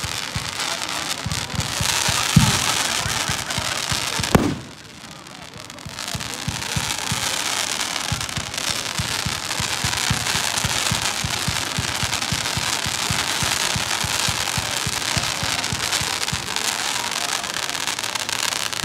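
Fireworks display: dense crackling of bursting shells, with a couple of louder bangs in the first few seconds. A brief lull about four and a half seconds in, then steady crackling resumes.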